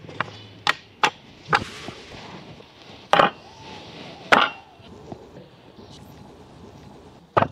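Pieces of wood being set down on a wooden workbench. There are three light knocks early, two heavier thuds as squared wooden blocks are put down about 3 and 4½ seconds in, and one more sharp knock near the end.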